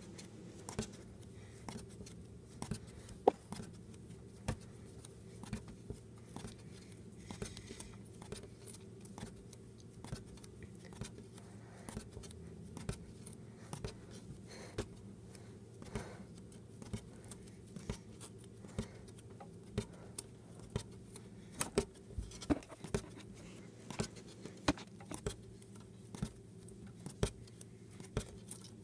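A small bouncy ball being bounced against a wall and desk and caught by hand: light, sharp taps about one or two a second, coming more often near the end, over a steady low hum.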